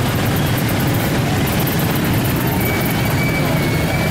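Steady low rumble of vehicle engines in street traffic, with a faint thin high tone from about two and a half seconds in.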